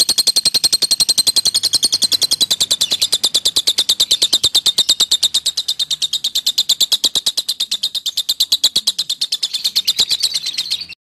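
Lovebird in 'ngekek' song: a long, unbroken chatter of fast, even, shrill chirps, several notes a second. It stops abruptly just before the end. This is a lovebird master recording, played to provoke other lovebirds into chattering back.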